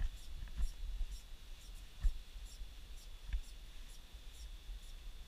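Faint scratchy handling sounds with light ticks about every half second and a few soft thumps, over a low rumble.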